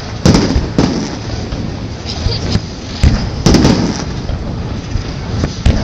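Aerial fireworks shells bursting in sharp, echoing bangs: two near the start, a cluster of three around three seconds in, and another near the end, over a steady background noise.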